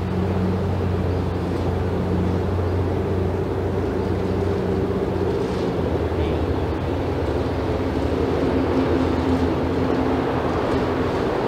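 A steady low motor drone with several held tones, running throughout, its pitch shifting slightly about halfway through.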